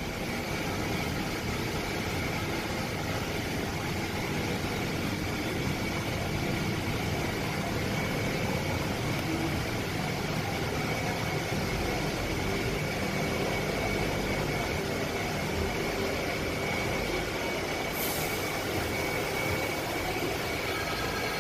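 Passenger train running: a steady, even rumble and rail noise with a faint steady high whine, and a short high hiss near the end.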